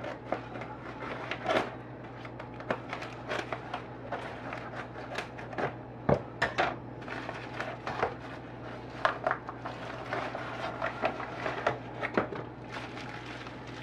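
Plastic packaging and a padded mailer being torn open and unwrapped by hand: irregular crinkling, crackling and small taps, over a steady low hum.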